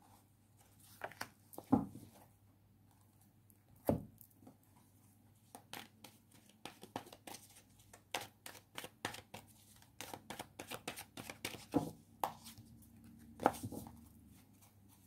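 Tarot cards being handled on a table as cards are drawn from a deck: a run of small quick clicks and taps, with a few louder knocks.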